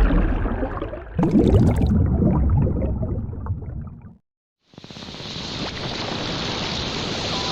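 Water churning and splashing close to the camera, heavy in the low end, for about four seconds; it cuts off abruptly, and after a brief silence a steady hiss like rushing spray fades in and slowly grows louder.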